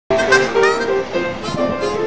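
Background music: a melody of short pitched notes over accompaniment.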